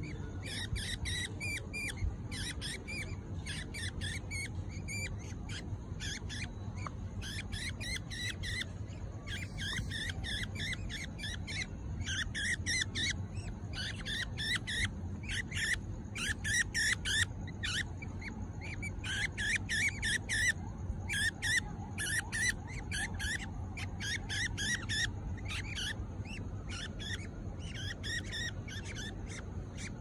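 Young budgerigar chicks chirping: short, high calls in quick runs of several a second, busiest and loudest in the middle.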